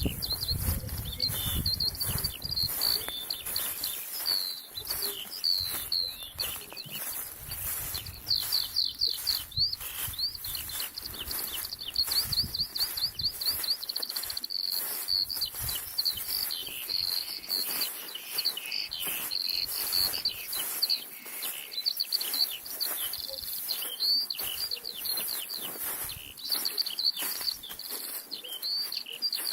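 Several songbirds singing and calling at once, with many quick chirps and rapid trilled runs overlapping.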